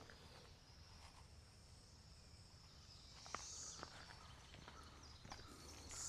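Quiet woodland with a faint, steady high-pitched insect buzz that swells twice, about halfway through and near the end, and a few faint ticks of movement or footsteps.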